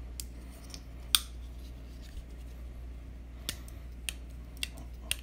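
Spyderco Manix2 Lightweight folding knife being opened and closed, giving a handful of short, sharp clicks, the loudest about a second in. The pivot is still over-tight after reassembly and is being worked in.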